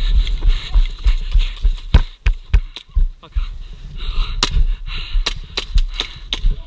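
Airsoft pistols firing: sharp, irregular cracks, with a quicker run of shots in the second half, over rumbling movement noise on the camera.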